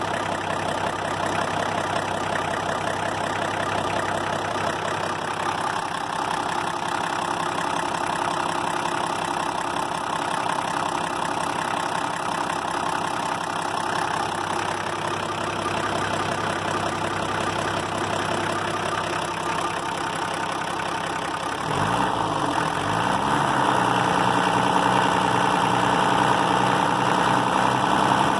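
Volvo TD40 diesel engine idling steadily with a freshly repaired injector washer, running smoothly. About three-quarters of the way in its note shifts and it runs a little louder.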